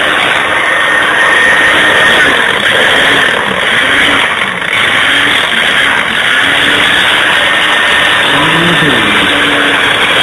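Countertop blender running, churning a thick sauce of ketchup, horseradish, mustard and habaneros: a loud, steady motor whir.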